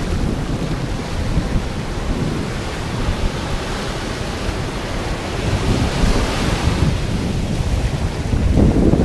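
Ocean surf: waves breaking and washing up over sand and rocks, with wind buffeting the microphone. A wave's hiss swells about six seconds in, and the rumble grows louder near the end.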